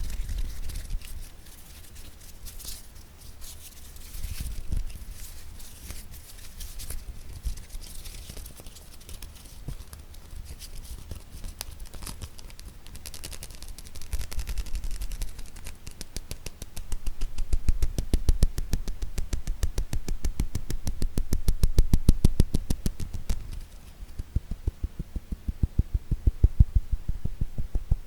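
Fingertips tapping on objects close to the microphone: scattered taps and light scratching at first, then from about halfway through a fast, even run of taps, several a second, each with a soft low thud.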